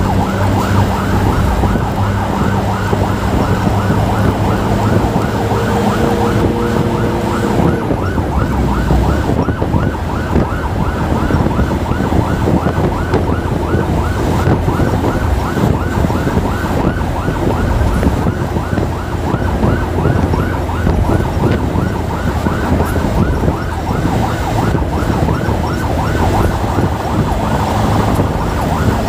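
Emergency vehicle siren in a fast yelp, a rising sweep repeating several times a second, over motorcycle engine and road rumble.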